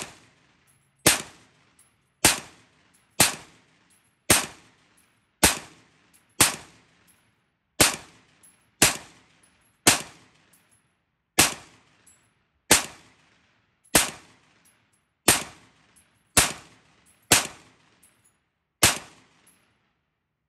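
San Tan Tactical STT-15, an AR-15-pattern rifle chambered in .223 Wylde, fired in slow semi-automatic fire: about seventeen sharp shots, roughly one a second, each dying away quickly.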